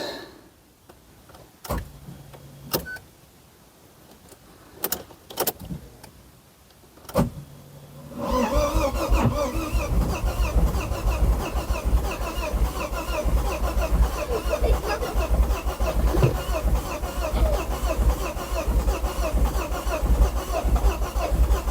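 Clicks of the key and ignition switching on, then, about eight seconds in, the Ford Focus ST's 2.5-litre turbocharged five-cylinder engine being cranked over by the starter motor, turning over continuously and loudly for its first start attempt after more than a year standing.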